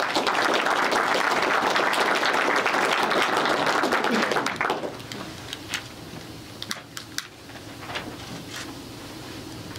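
Audience applauding for about four and a half seconds, then dying away, leaving a few scattered clicks and knocks.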